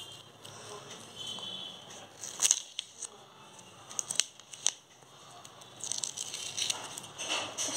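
Masking tape and a paper sheet being handled and peeled, with crinkling, a few sharp clicks around the middle, and a longer stretch of rustling near the end.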